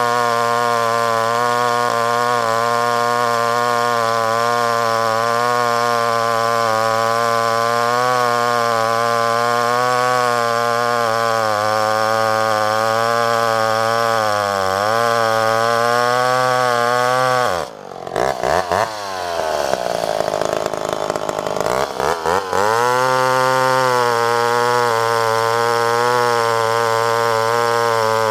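Vintage two-stroke chainsaw at full throttle bucking a log, its pitch wavering as the chain loads in the cut. About two-thirds of the way through it suddenly drops toward idle, then revs back up and carries on cutting.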